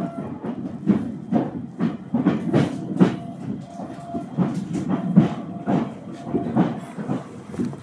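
Ride noise inside an Ueda Electric Railway electric train running on the Bessho line: the wheels knock and clatter over the rail joints, two or three knocks a second, over a steady rumble. A faint tone comes and goes.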